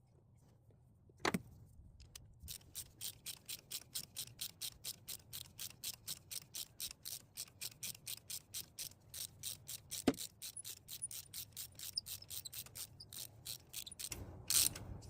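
Socket ratchet clicking steadily, about four clicks a second, as a new spark plug is run down into the engine's cylinder head. A louder single click comes about a second in and another around ten seconds in.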